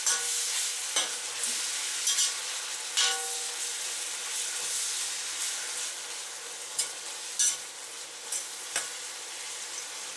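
Thin slices of pork sizzling in hot oil in a wok, stir-fried with sharp scrapes and clicks of the utensil against the wok every second or two.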